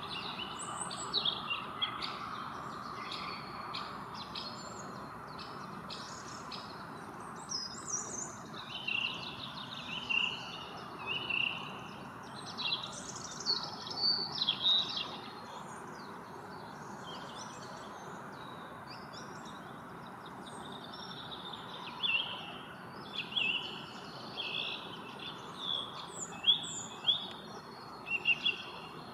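Small songbirds chirping and singing: many short, high notes and trills in quick runs, busiest in the first half and again near the end, with a quieter spell in the middle, over a steady low background hum.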